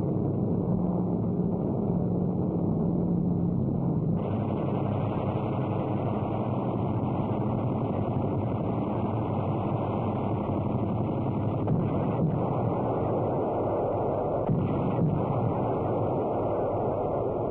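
Steady drone of bomber aircraft engines on an old optical film soundtrack, with a low hum that changes about four seconds in. A few dull thuds of bomb bursts come in the second half.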